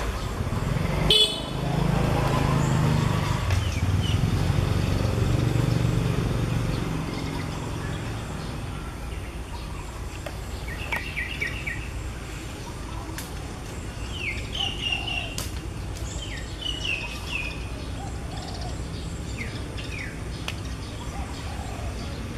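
Outdoor ambience. A brief sharp high-pitched sound about a second in is followed by a motor vehicle passing with a low rumble that swells and fades over several seconds. In the second half, birds chirp in short, quick notes.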